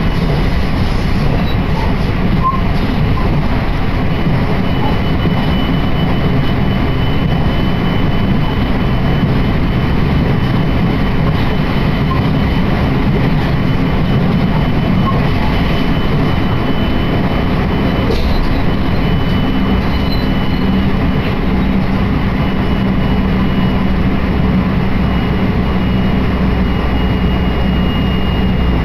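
Steady running noise heard inside a moving passenger train: a loud, even rumble of wheels on rail. About five seconds in, a faint, thin, high tone joins it.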